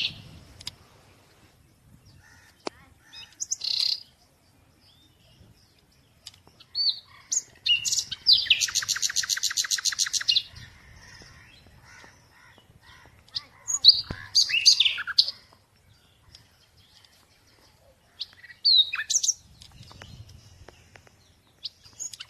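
Songbirds singing: scattered short chirps and whistled notes, with a fast trill lasting about two seconds, starting about eight seconds in.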